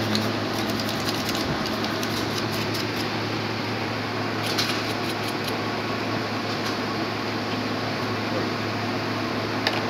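Steady fan hum in the room, with short runs of light clicks and rattles from plastic and metal laptop parts being handled as the motherboard is lifted out of the chassis.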